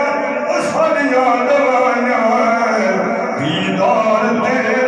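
A man singing a Punjabi naat unaccompanied into a microphone, in long held melodic lines that bend in pitch, with a new phrase starting about three seconds in.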